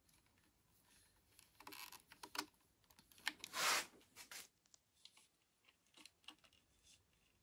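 Faint clicks, taps and handling noise as multimeter test probes are worked into an electric unicycle's battery connector, with a louder rustling scrape lasting about a second roughly three and a half seconds in.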